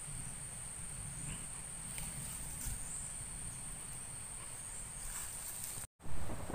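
Insects trilling steadily at a high pitch over a faint low rumble. Near the end the sound drops out for an instant, then there is a short, louder thump.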